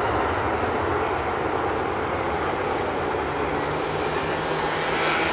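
Airbus A319 airliner's twin jet engines running as it rolls out along the runway after touchdown: a steady, even roar.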